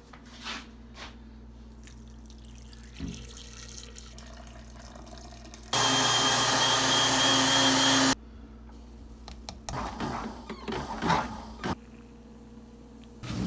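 Running water over a steady low hum, with a few short splashes. In the middle comes a loud rush of water for about two and a half seconds that starts and stops abruptly.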